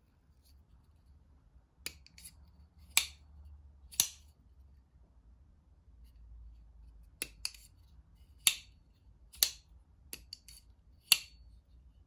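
Hogue X5 flipper knife being flipped open and closed: five loud, sharp metallic snaps of the blade swinging out or shutting, with lighter clicks in between from the lock and handling.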